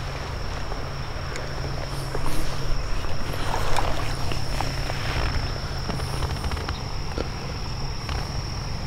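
A steady high-pitched insect trill runs throughout over a constant low rush of moving creek water, with a few faint small clicks and splashes.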